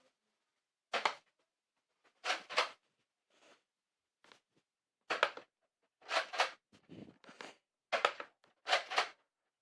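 Nerf blaster being worked and fired: a string of short, sharp bursts, many in quick pairs, with silent gaps between.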